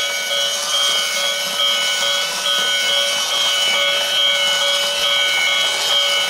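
Battery-powered toy steam-locomotive train set running on its plastic track: a steady, high-pitched whine made of several tones that pulse slightly, about three times a second, over a rattling hiss.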